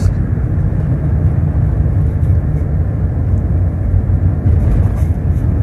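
Steady low rumble of a moving car, heard from inside the cabin: engine and road noise while driving.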